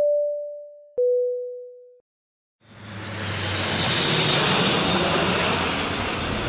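A two-note descending chime, each note ringing out for about a second. Then, a little over half a second later, the Airbus A400M's four turboprop engines fade in and swell as the aircraft passes low overhead on approach.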